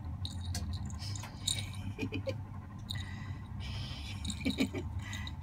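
Fingers scratching a cat's chin and rustling its fur and cloth collar, with the small jingle bell on the collar giving light, scattered clicks and jingles over a steady low hum.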